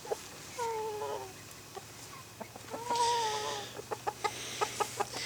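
Backyard chickens calling: two drawn-out, steady-pitched calls about two seconds apart, then a few light ticks near the end.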